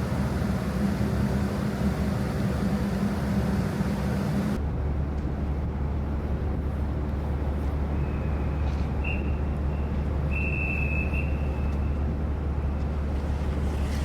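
Steady hum and rumble of a large car ferry's engines and machinery. About four and a half seconds in it switches abruptly to a deeper, steadier low rumble with less hiss, and a few faint short high whistles come in the second half.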